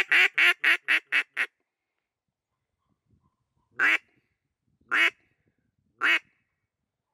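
Mallard hen quacking on a duck call: a quick run of about seven quacks, then three single quacks spaced about a second apart.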